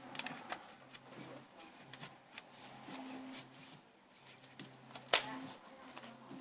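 Handling noise from picture-frame parts being fitted together: scattered light taps and rustles, with one sharp click a little after five seconds in.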